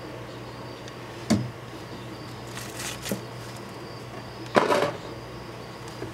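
Handling noises: a sharp knock about a second in, a soft rustle and click around three seconds, and a louder scraping rustle a little after four and a half seconds, over a faint steady hum.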